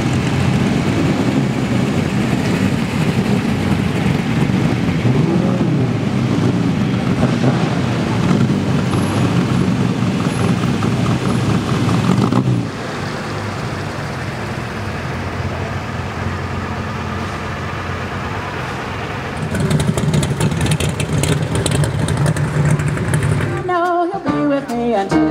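Vintage race cars driving slowly past one after another, engines running, loudest through about the first twelve seconds, then quieter, then louder again with sharp crackles. About a second and a half before the end it cuts to a live band playing.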